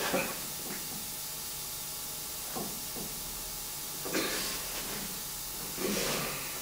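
A man's short, heavy breaths of effort, four of them, over a faint steady hiss, as he forces the stiff handwheel of an old jointer-thickness planer's table-lift mechanism. The mechanism is not working properly and needs to be freed up.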